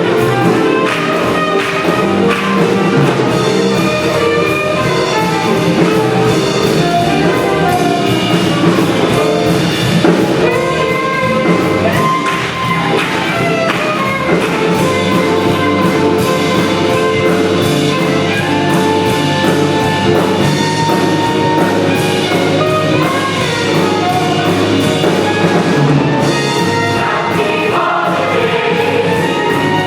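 Jazzy big-band accompaniment led by brass with a steady beat, with some singing over it.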